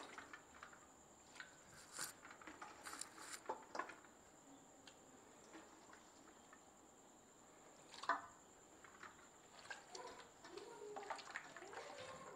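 Mostly quiet, with faint scattered wet clicks and taps as raw chicken pieces go into a bowl of milk-and-vinegar marinade; a sharper click about eight seconds in.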